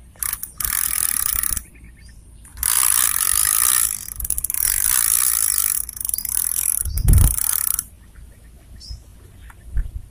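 Spinning fishing reel being cranked to wind in line, a whirring, grinding mechanical sound in four spells of one to two seconds with short pauses between. A dull handling thump comes during the last spell.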